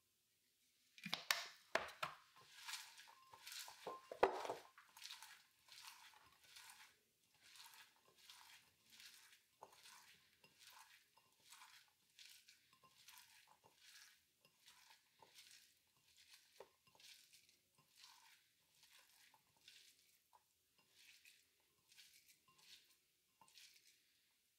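Hands squeezing and massaging oiled, chopped kale in a glass bowl: soft repeated scrunching and rustling of the leaves in a steady rhythm. A few louder clicks and knocks against the glass come in the first few seconds.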